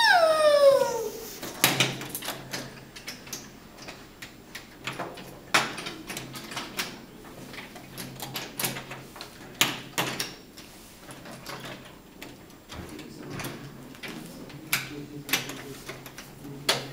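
Wooden toy train set pieces knocking and clacking together as they are handled and set on the track, in scattered sharp clicks. A child's voice slides down in pitch in the first second.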